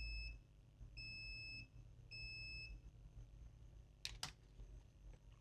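Multimeter continuity buzzer giving three short high beeps as the probes touch a capacitor on the laptop's main power line: the beeping shows a dead short to ground. Two faint clicks follow about four seconds in.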